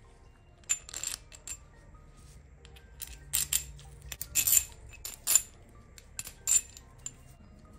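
Steel bolts, nuts and washers clinking against a metal hub and spindle bracket as a bolt is taken out and refitted by hand. The sharp metallic clicks come in small irregular clusters, each with a brief ring, and are loudest about four to five and a half seconds in.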